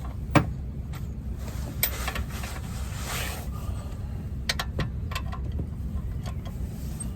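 A few sharp clicks and knocks over a steady low rumble: tools at work on the car's brake assembly.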